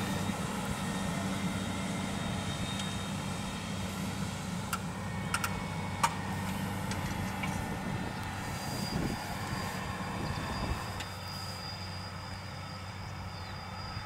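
Fendt 718 Vario tractor's six-cylinder diesel running steadily at working revs while ploughing, with a few sharp knocks from the implements around the middle, the loudest about six seconds in. A thin high whine joins in the second half as the engine hum drops back.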